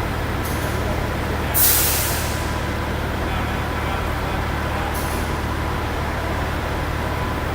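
Steady low machine hum, with one short, loud hiss about one and a half seconds in that fades quickly, and fainter brief hisses near the start and about five seconds in.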